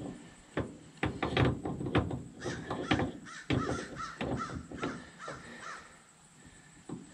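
Knocks and clunks of metal driveshaft parts, the double cardan yoke and U-joints being worked together, through the first half, overlapped by a crow cawing repeatedly, a string of short harsh calls, in the middle; it goes quieter near the end.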